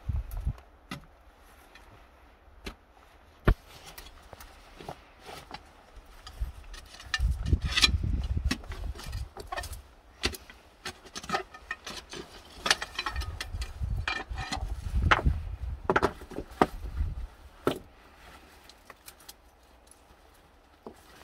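A T-handled metal digging bar being worked between volcanic rocks and dry grass to dig out roots: irregular clinks, knocks and scraping, with rustling in between. A single sharp knock about three and a half seconds in is the loudest, and there are stretches of low rumble.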